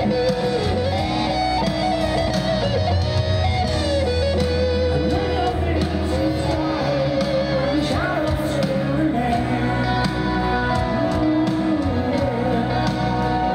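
A live rock band playing a slow ballad: a Les Paul electric guitar plays a bending lead melody over grand piano, bass and drums.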